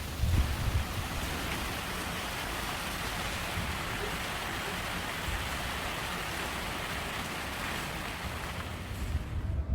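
Wind blowing steadily, a constant rushing with gusts buffeting the microphone as low rumbles about half a second in and again near the end.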